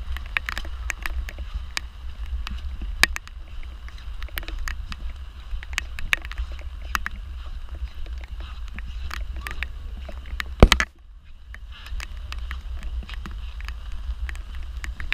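Storm wind buffeting the microphone as a steady low rumble, with many scattered sharp clicks and taps over it. About ten and a half seconds in there is one loud knock, after which the rumble briefly drops away before returning.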